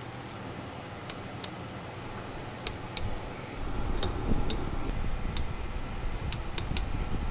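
Scattered light clicks and taps, about a dozen at irregular intervals, from hand work on parts under the vehicle, over a steady background hum with a low rumble that grows heavier from about three and a half seconds in.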